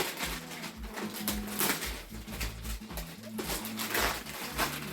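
Gift wrapping rustling and crinkling as a present is unwrapped by hand, in a run of quick, irregular scratchy noises.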